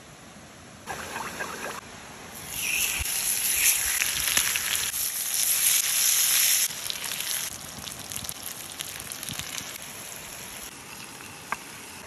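Salmon fillets sizzling on a hot flat stone over campfire embers, with fine crackling. The sizzle starts about two seconds in, stays loud for about four seconds, then eases off before dying down near the end.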